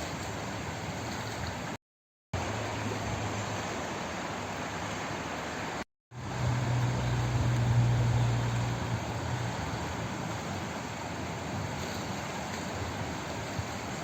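Flowing water making a steady, even rush. It cuts to dead silence twice, briefly, about two and six seconds in; just after the second gap a low hum swells for about three seconds and fades back into the water.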